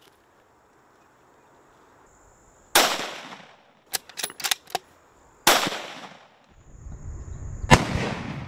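Three rifle shots from a scoped Howa bolt-action rifle, about two and a half seconds apart, each with a short echoing tail. Between the first and second shots comes a quick run of sharp metallic clicks as the bolt is worked to chamber the next round.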